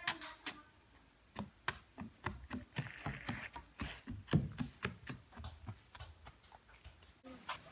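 Footsteps on wooden boardwalk planks: a small child walking, then running, the steps coming about two or three a second.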